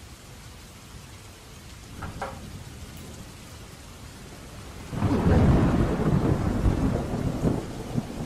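Steady rain, then a sudden loud thunderclap about five seconds in that keeps rumbling deeply.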